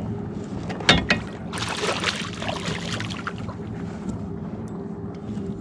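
Water splashing and sloshing beside a kayak as a hooked smallmouth bass is brought to the landing net, with two sharp knocks about a second in, over a steady low hum.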